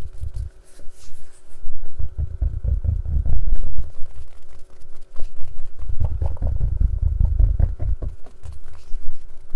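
A case being tapped and handled for ASMR: quick light clicks throughout, over dull low thuds that come in two stretches, a couple of seconds each.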